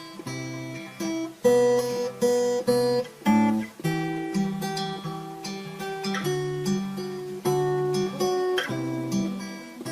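Acoustic guitar playing a slow chord pattern, with short sliding notes between some of the chords.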